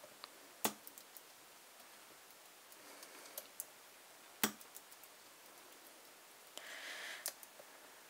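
Small brass three-dial combination padlock being worked by hand: faint clicks and ticks as the number wheels are turned while the shackle is held under tension, searching for the most binding dial. A few sharper clicks stand out, about a second in, just past the middle and near the end, with a short scraping rustle just before the last.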